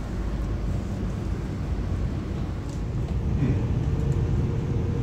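A passenger train running, heard from inside a rail car: a steady low rumble that grows a little louder about three seconds in, with a faint steady hum joining it.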